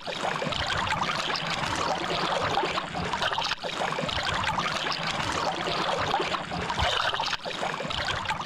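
Small waves lapping and splashing over rocks at the water's edge, close to the microphone, a steady run of splashes and trickles.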